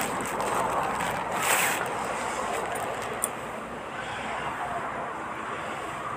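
Plastic courier mailer bag crinkling and rustling as it is torn open and a folded saree is pulled out, with a louder rip about a second and a half in.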